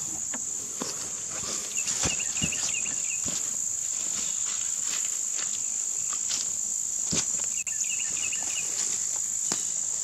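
Insects trilling in one steady high-pitched drone, with a short run of quick high chirps twice and a few scattered clicks and knocks.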